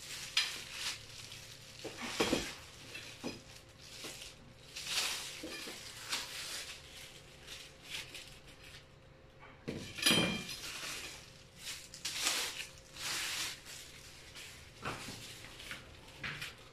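Metal shelving poles and wire shelves knocking and clinking against each other as they are handled, in irregular clanks with some scraping, the loudest about ten seconds in.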